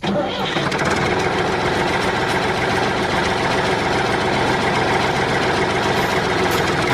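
Tanker truck's engine idling steadily with a rough, knocking rumble.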